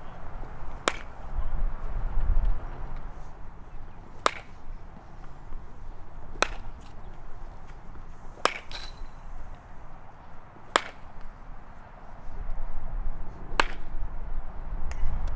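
A baseball bat hitting pitched balls in batting practice, about six sharp cracks a couple of seconds apart, over a low rumble.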